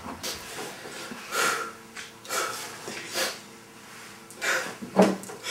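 A man sobbing and sniffling: about half a dozen short, noisy sniffs and gasping breaths, one every second or so, in a small room.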